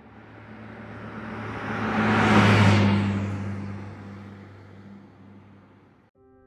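A truck driving past on a highway. Engine hum and tyre noise grow louder to a peak about two and a half seconds in, then fade away and cut off suddenly near the end.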